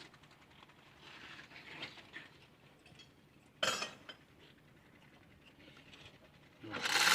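Metal tools and steel parts clinking: faint scraping, a single sharp clink a few seconds in, then a louder clatter near the end.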